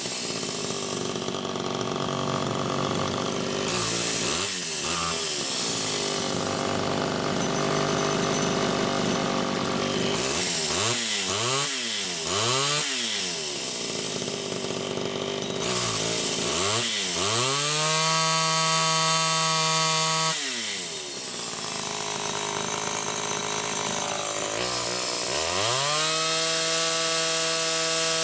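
Homelite Super XL two-stroke chainsaw engine running and being revved: the pitch swings up and down several times, is held at high revs for a couple of seconds, drops back, then climbs again and stays high near the end.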